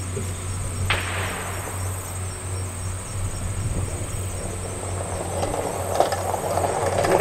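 Outdoor shooting-range ambience with a steady high insect buzz and a low hum. About a second in, a single distant gunshot cracks and echoes away over about a second.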